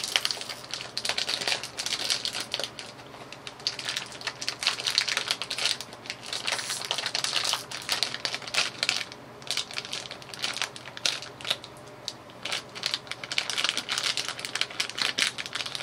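Crinkling and crackling of a snack bag being handled and opened by hand, with a few brief pauses.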